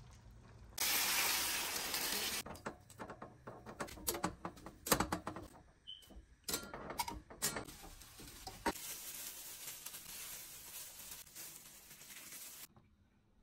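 Kitchen food-prep sounds: a loud hiss lasting about a second and a half, then a run of clicks and knocks of utensils and cookware, then a long soft crinkling rustle of a plastic bag that stops shortly before the end.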